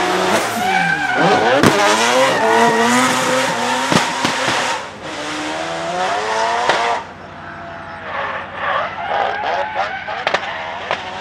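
Drift car engine revving hard, its pitch swinging rapidly up and down, with tyres squealing as the car slides. It is loudest for the first seven seconds, then drops off.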